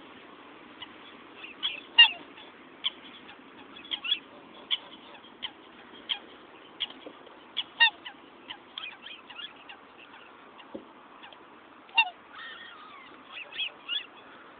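Black swans giving short calls, the loudest about two seconds in and others near the middle and near the end, with many small sharp taps in between from beaks pecking at the car.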